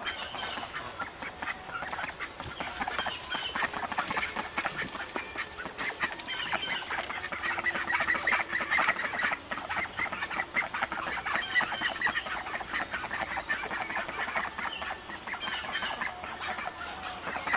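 A small flock of ducks and chickens calling, many short quacks and clucks in quick succession.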